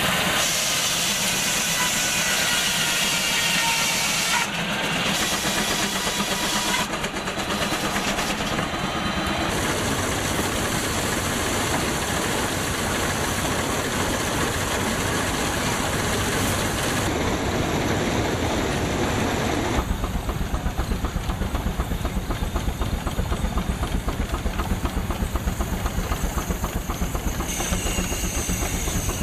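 A steady hissing rush from old sawmill and steam machinery, cut off and changing abruptly several times. From about two-thirds in, an antique steel-wheeled tractor's engine runs with a quick, even exhaust beat.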